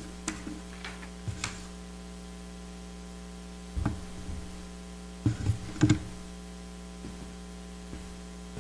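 Steady electrical mains hum through the microphone and sound system, with a few scattered soft knocks and thumps of handling at a wooden pulpit, the loudest in a cluster about five to six seconds in.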